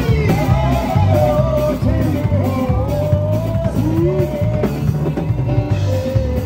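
Live gospel band music: electric guitar and keyboard over a steady drum-and-bass beat, with a singing melody line, played through a PA loudspeaker.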